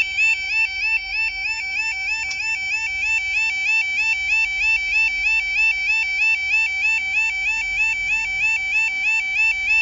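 UK level crossing audible warning alarm (the 'yodel' alarm) sounding: a loud, continuous electronic warble repeating a quick rising sweep several times a second, the signal that the barriers are down and a train is due.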